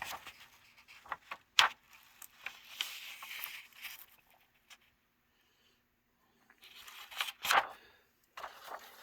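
Paper pages of an owner's manual being handled and turned. There is crackly rustling, with two sharper page flips: one about a second and a half in and one near the end.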